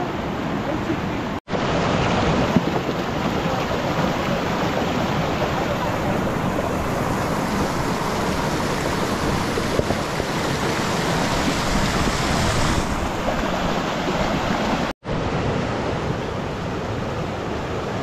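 Steady rush of a fast mountain river tumbling over rocks, cutting out for an instant twice.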